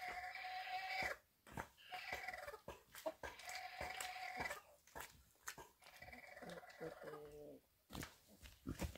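Newborn piglets squealing: four high-pitched squeals of about a second each, the last one dropping lower near its end, with scattered small clicks and knocks between them.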